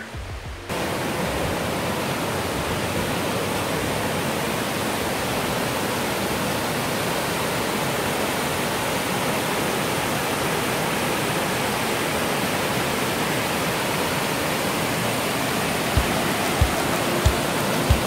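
Water rushing steadily over a shallow rocky cascade and small waterfalls, an even, full-range roar of falling water. Near the end a soft low beat of background music comes in, about one thump every 0.6 seconds.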